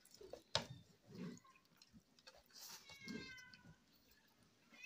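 A domestic cat meowing once about two seconds in, a short, slightly falling call. Faint mouth and hand sounds of eating come through, with a sharp click about half a second in.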